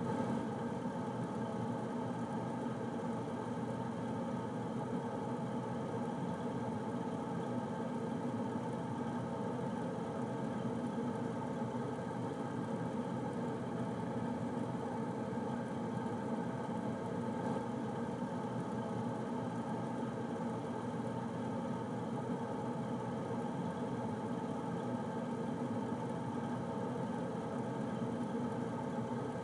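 Air conditioner running steadily: an even whir with a hum of several steady tones, heaviest in the low and middle range, with no change in level.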